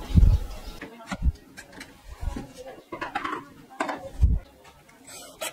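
Dull thumps and knocks of stacked fabric-covered wooden frame panels being shifted and pressed together on a wooden workbench, with clicks and scraping between the thumps, about four thumps in all.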